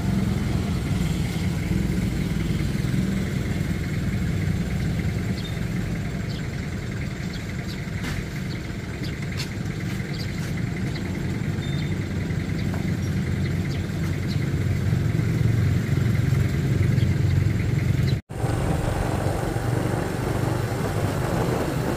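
Steady rumble from a moving motorcycle: the engine hum is mixed with wind on the microphone. It drops out briefly about eighteen seconds in, then the same rumble resumes.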